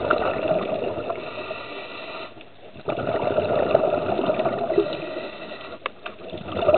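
Underwater rushing and bubbling from a scuba diver's exhaled breath, in two long surges with a short lull between them. A sharp click comes near the end.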